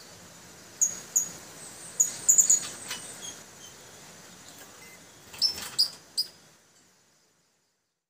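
Young male puling birds calling: short, sharp, very high chirps in quick clusters, one group about a second to three seconds in and another around five and a half to six seconds in, before the sound fades out.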